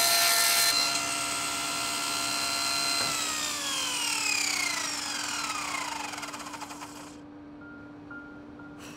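Table saw finishing a bevel cut through a maple footing, the cutting noise stopping within the first second and the blade running free with a steady whine. About three seconds in the saw is switched off and the whine falls steadily in pitch as the blade spins down, dying away by about seven seconds.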